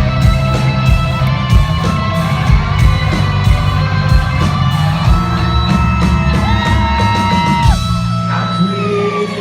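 Live rock band playing an instrumental passage: a lead electric guitar bends and holds notes over drums and bass. Near the end the drums stop and a guitar note slides steadily downward.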